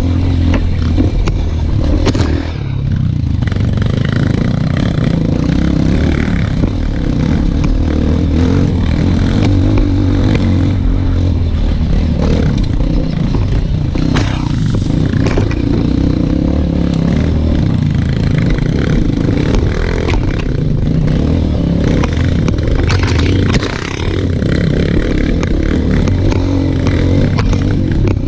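Dirt bike engine running under load on a rough uphill trail, heard from a helmet-mounted camera, its sound dipping briefly about two seconds in and again near the end. Brush and branches scrape against the bike and rider.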